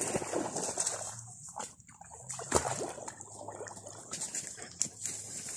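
Muddy pond water sloshing and splashing as a person wades in up to the chest. There is a sudden louder thump about two and a half seconds in.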